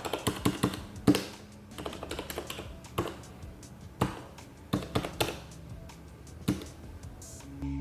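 Keys with Cherry MX Red linear switches on a small mechanical macropad being pressed one after another, in irregular sharp taps, some in quick pairs. Background music comes in near the end.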